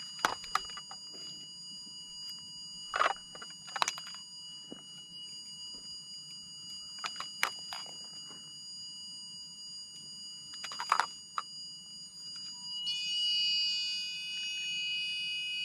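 Ghost-hunting electronics: steady high electronic tones, broken by a few short crackles of static from a ghost-box app. About 13 seconds in, a louder cluster of warbling electronic alarm tones, typical of a REM pod going off, sounds for a few seconds and cuts off suddenly near the end.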